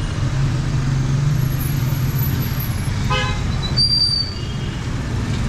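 Busy street traffic: engines running in a steady low rumble, with a short vehicle-horn toot about three seconds in and a brief high-pitched tone just after it.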